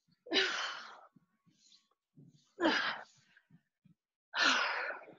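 A woman breathing out hard three times, about two seconds apart, with the effort of exercise repetitions.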